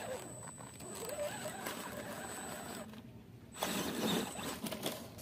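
MN86KS RC crawler's small electric motor and gearbox whirring in spurts as it climbs, with its tyres crunching over loose gravel and rubble. It stops briefly about three seconds in, then comes back louder.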